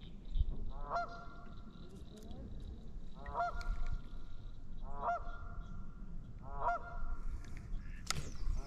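A honking call repeated four times, each a quick rise into a held, nasal tone, typical of a goose. A sharp click near the end.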